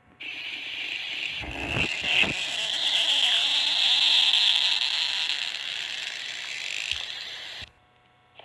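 Cartoon stomach-growl sound effect: one long growl of about seven and a half seconds that starts and cuts off abruptly, with a couple of low thuds about two seconds in.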